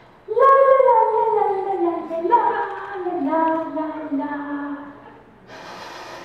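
A high performer's voice singing in three sliding phrases, each gliding downward in pitch, followed by a short hiss near the end.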